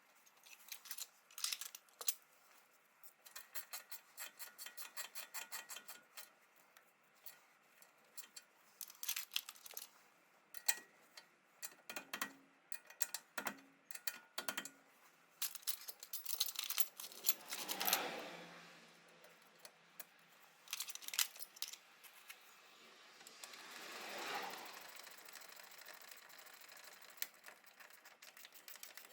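Hand tools working on car suspension: runs of rapid, even ratchet-wrench clicks, with metal tools and parts clinking and a few longer scraping sounds.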